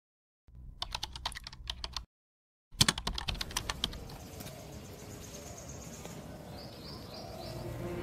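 Computer keyboard typing clicks in two quick runs, split by a short dead-silent gap. After them comes a faint steady hiss with a few high chirps, and music begins to swell near the end.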